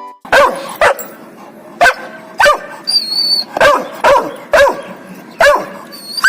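A dog barking repeatedly: about eight short, sharp barks, several of them coming in quick pairs.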